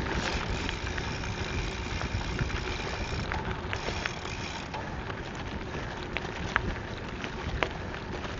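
Bicycle rolling along a gravel trail: a steady rush of tyre noise and wind on the microphone, with a few sharp clicks and rattles.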